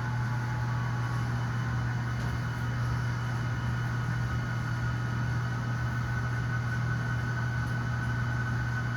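HO scale model diesel locomotive layout giving off a steady low hum with a faint higher whine.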